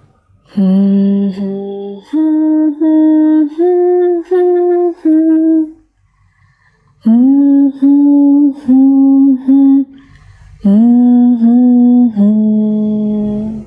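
A voice humming a simple, slow tune in short held notes, in three phrases with brief pauses between them.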